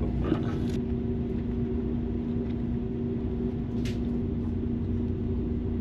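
Steady low rumble and electrical hum of a train running, heard from inside the passenger carriage, with a brief hiss about four seconds in.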